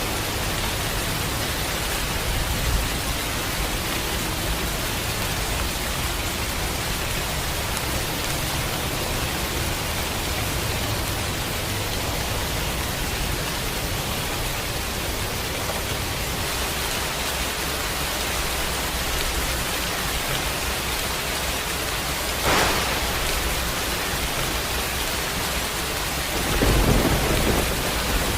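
Steady rain in a thunderstorm, with a short crack of thunder about three-quarters of the way through and a louder, deeper rumble of thunder near the end.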